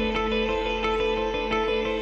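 Background music: quick, evenly spaced plucked-string notes over steady held tones.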